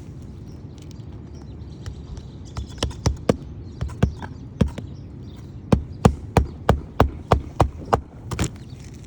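Hammer blows driving nails into asphalt roof shingles: a few scattered strikes, then a steady run of about eight blows at roughly three a second.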